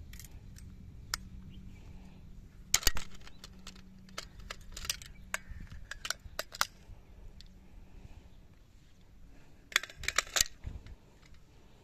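Metal clicks and clacks of a chrome-plated 30-bore AK-pattern rifle with an underfolding stock being worked by hand. A sharp, loud clack comes about three seconds in, a run of lighter clicks follows in the middle, and a quick cluster of clacks comes near the end.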